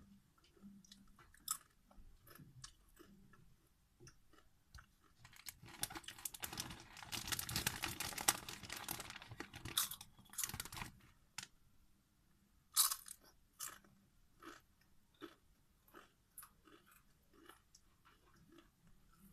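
Close-miked crunching and chewing of Doritos tortilla chips: scattered sharp crunches, with a dense, louder stretch of crackling from about six to eleven seconds in.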